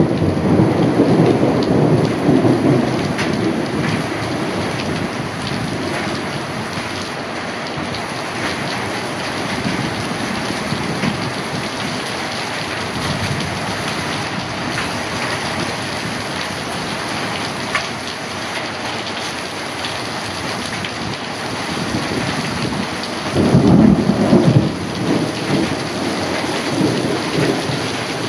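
Heavy rain falling steadily during a thunderstorm. A roll of thunder dies away over the first few seconds, and a louder peal of thunder comes about three-quarters of the way through.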